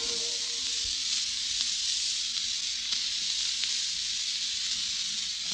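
Steady hiss with scattered clicks and crackles, with a faint low hum beneath: surface noise of an old transcription-disc recording of a 1937 radio broadcast. The last note of a brass music bridge fades out at the very start.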